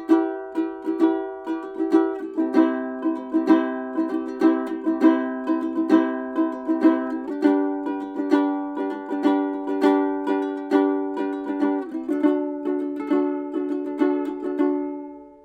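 Soidin SK2422M 23-inch laminated mahogany ukulele played in chords, several strokes a second, changing chord about three times; the last chord is left to ring and fades out at the end.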